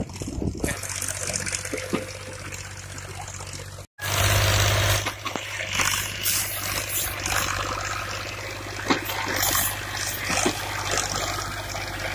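Fiat 480 tractor's three-cylinder diesel engine running steadily under load while pulling a tine cultivator through dry soil, with a steady rushing noise over it. The sound breaks off for an instant about four seconds in and comes back louder.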